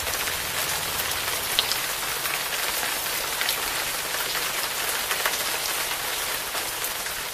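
Steady rain falling on hard surfaces: a dense hiss dotted with sharper ticks of individual drops.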